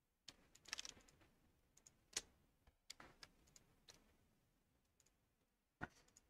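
Scattered, faint clicks of computer keyboard keys and mouse buttons, a few keystrokes at a time, the sharpest about two seconds in and near the end.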